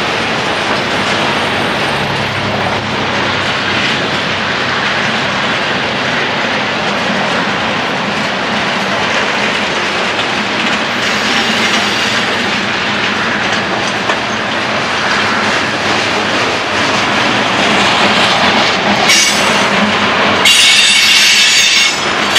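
Freight cars of a long mixed freight train rolling past, a steady loud noise of steel wheels on rail. About two seconds before the end, a high wheel squeal sets in and the sound grows louder.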